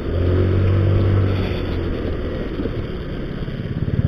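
Motorcycle engine running while riding, heard from a camera on the bike along with road and wind noise. The steady engine note eases off about two seconds in, and a low uneven pulsing follows near the end.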